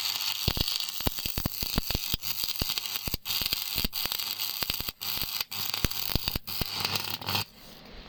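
Stick welding arc (shielded metal arc welding) crackling with a dense hiss and many sharp pops over a steady low hum. It cuts off suddenly near the end as the arc is broken.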